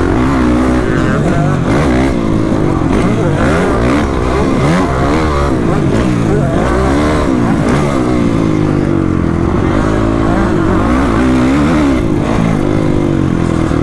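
Motocross bike engine ridden hard, its revs climbing and dropping again and again as the rider accelerates, shifts and backs off around the track.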